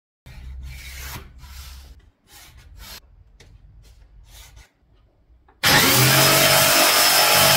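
Pencil scratching along a steel ruler on MDF board in a series of short strokes. About five and a half seconds in, a Bosch jigsaw starts and runs steadily, much louder, cutting into the MDF sheet.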